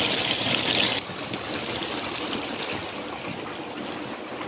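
Chopped onions sizzling in deep hot oil in a kazan, a steady hiss that drops in loudness about a second in.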